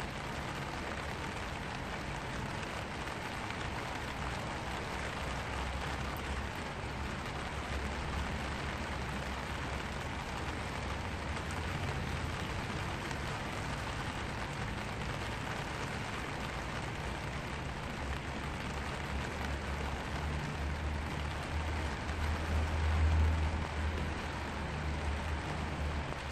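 Rain falling steadily on a black vinyl umbrella, heard from underneath as an even hiss of drops on the canopy. A low rumble runs beneath it and swells about three-quarters of the way through.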